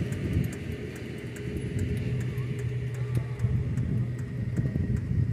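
Diesel tractor engine idling with a steady low hum.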